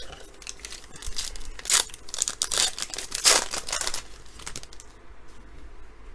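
A foil trading-card pack wrapper being torn open and crinkled for a few seconds, with the loudest rips about two and three seconds in.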